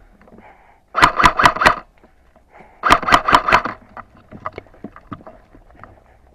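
Airsoft gun firing two short bursts of about four shots each, the first about a second in and the second about three seconds in, with fainter scattered clicks after.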